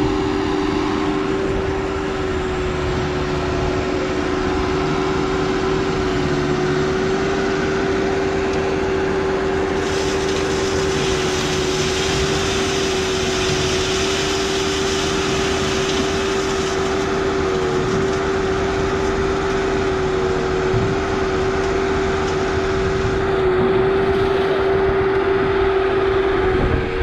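An engine running steadily at constant speed with an unchanging pitch. A hiss joins it for several seconds in the middle.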